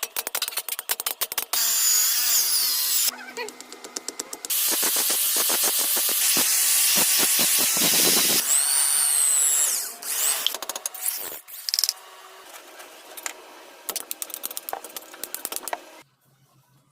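Power grinder grinding steel in several abrupt stretches, with a wavering whine over a loud steady rasp. Between the stretches come runs of rapid, sharp ticking strokes.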